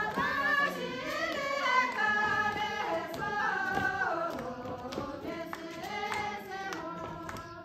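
Group of women singing a folk dance song together, high voices holding long notes that slide between pitches, with a few light taps beneath.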